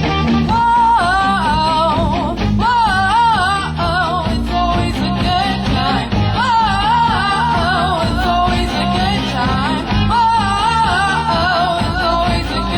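Music: a sung melody with strong wavering vibrato over guitar and a steady bass backing.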